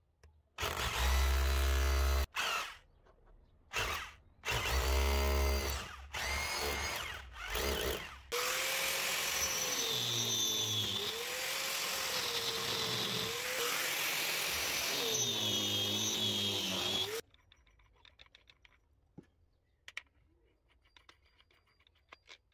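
A power drill run in several short on-off bursts, then an angle grinder with a diamond core bit grinding a round hole through wall tile for about nine seconds, its pitch dipping and recovering as it bites. It then stops, leaving only faint clicks.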